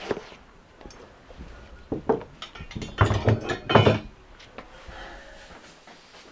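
Scattered knocks and clatters, with a louder cluster of heavy thuds about three to four seconds in.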